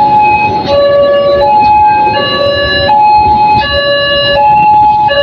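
Railway level-crossing warning alarm sounding a repeating two-tone electronic signal, a high and a low note alternating about every three-quarters of a second, warning that the crossing is closed for a train. Beneath it, the rumble of the train's coaches passing over the crossing.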